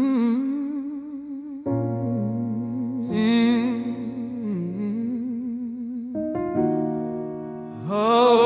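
Intro of a soul song: a voice sings wordless phrases with vibrato over sustained electric piano chords. The chords change about six seconds in, and the voice swells louder near the end.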